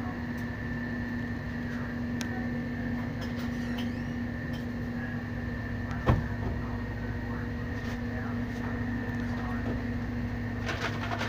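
A steady mechanical hum with several constant tones, and a single sharp knock about six seconds in.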